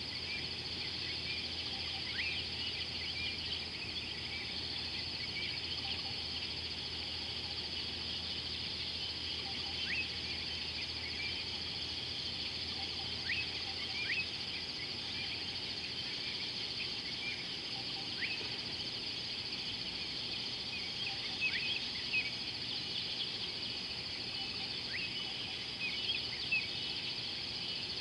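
Steady high-pitched trilling of an insect chorus, with short falling bird chirps scattered through it, about a dozen in all and a few in quick pairs.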